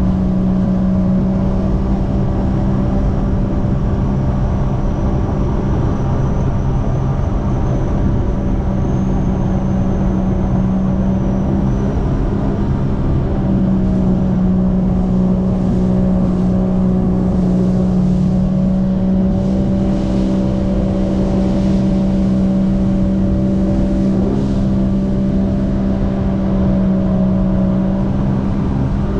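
Jet ski engine running at a steady high speed, its drone holding an even pitch, with water spray rushing past the hull.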